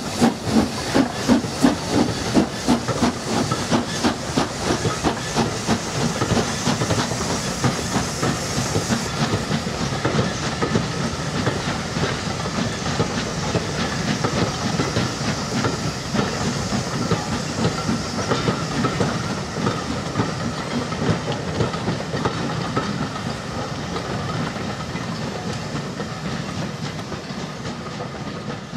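Two Southern Railway steam locomotives, Schools class No. 925 'Cheltenham' and S15 No. 847, double-heading a train away with quick exhaust beats and hissing steam that die away in the first few seconds. Then the carriages roll past with wheels clicking over the rail joints, fading slightly near the end.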